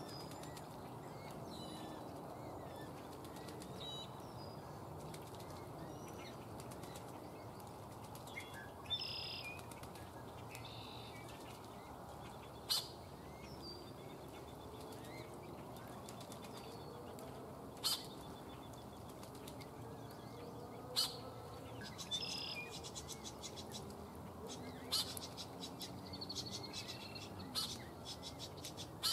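Coots bathing: splashing in shallow water and flapping their wings, with many short high bird chirps. A few sharp clicks stand out as the loudest sounds.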